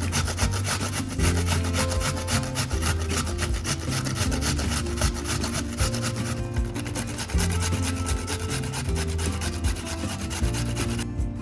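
Potato being grated on a hand grater: rapid, repeated rasping strokes that ease off a little past halfway, over background music with a steady beat.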